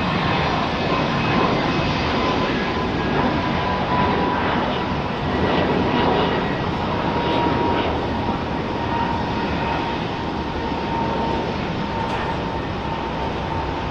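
Airliner passing, its engine noise a steady rush with a whine that slowly drops in pitch, easing off a little near the end.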